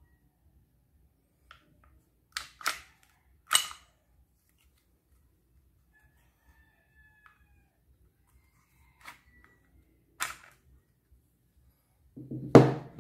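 Sharp plastic-and-metal clacks of a WE G34 Gen 4 gas blowback airsoft pistol being handled for field-stripping: a handful of single clacks, the loudest about three and a half seconds in, then a louder, longer clatter near the end as the slide comes off the frame.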